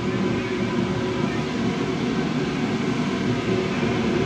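A steady, even mechanical drone with a few faint steady tones running through it, such as a fan or other machine running in the shop; nothing starts or stops.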